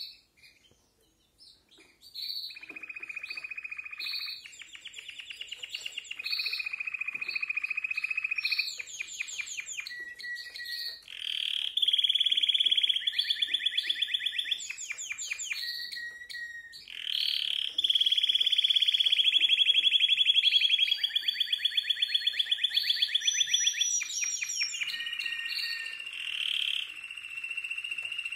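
Timbrado Español canary singing, starting about two seconds in: long rolling trills and fast runs of repeated, ringing metallic notes, the 'metálico' passages of timbrado song.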